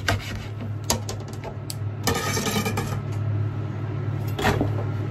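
Kitchen knife cutting fuki (butterbur) stalks on a plastic cutting board: a few sharp knocks and a short scraping rustle about two seconds in, over a steady low hum.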